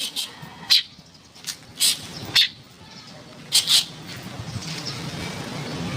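Oriental magpie-robin (kacer) singing: a string of short, sharp high whistled notes, some in quick pairs, spread over the first four seconds, with a rising background hiss after that.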